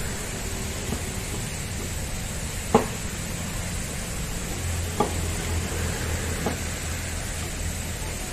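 Steady outdoor hiss with three or four sharp clicks or taps spread through it, and a low hum that comes in about halfway through and fades near the end.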